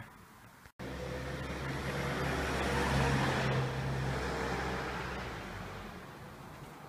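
A road vehicle driving past: engine hum and tyre noise cut in abruptly just under a second in, swell to a peak about three seconds in, then fade away.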